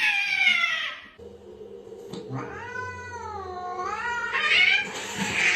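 A cat yowling: a long drawn-out call ends about a second in, then a second long yowl wavers down and back up in pitch, followed by a harsher, rasping cry near the end.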